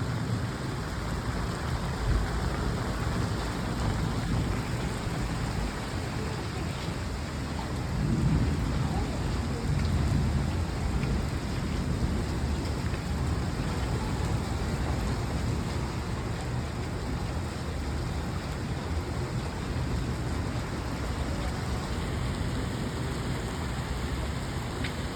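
Steady rain falling. A deeper low rumble swells about eight seconds in and eases off by about eleven seconds.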